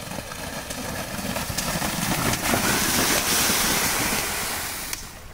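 A pair of racing buffaloes charging through a flooded, muddy kambala track, throwing up water in a rushing splash that grows louder as they approach, peaks as they pass about three to four seconds in, and drops away sharply near the end.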